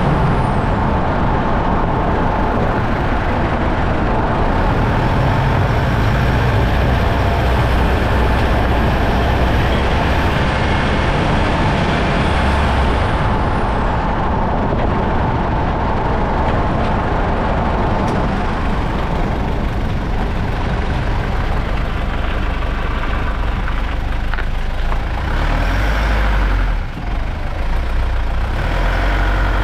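Mitsubishi Pajero being driven: steady engine and road noise with strong low rumble, dipping briefly near the end.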